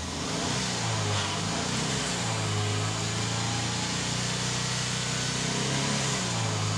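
2007 Subaru Outback's 2.5-litre EJ25 flat-four petrol engine free-revving while stationary, held at about 3,000 to 4,000 rpm and climbing a little near the end, heard from inside the cabin.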